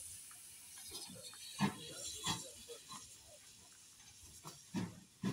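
Irregular clanks and knocks from a vintage steam-hauled railway carriage on the move, coming closer together and louder near the end.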